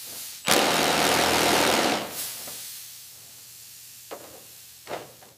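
Cordless drill boring through thin aluminium sheet: a loud burst of motor and cutting noise starts about half a second in and lasts a second and a half, then runs on more quietly, with two short bursts near the end.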